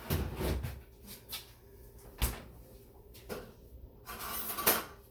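Kitchen handling sounds as a milk jug is fetched: a door opening at the start, a sharp knock about two seconds in, a lighter knock a second later, and a rising rustle near the end.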